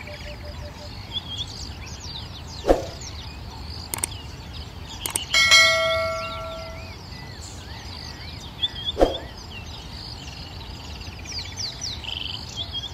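Small birds chirp throughout. A subscribe-reminder sound effect plays over them: two sharp clicks, then a bright bell-like ding about five seconds in that rings out for a second and a half. Two short pops come earlier and later.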